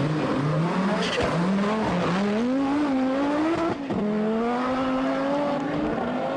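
Audi Quattro rally car's turbocharged five-cylinder engine accelerating hard, its pitch climbing steadily, then dropping sharply just before four seconds in and climbing again.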